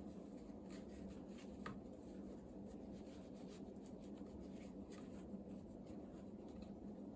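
Faint scratchy rubbing and small irregular ticks of jute twine being handled and wound onto a cat scratching post, over a low steady hum.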